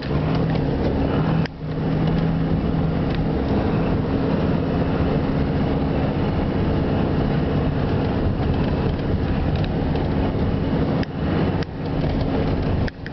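Car engine running steadily under a constant low hum of tyre and road noise, heard from inside the cabin while driving through snow, with a few brief drops in loudness.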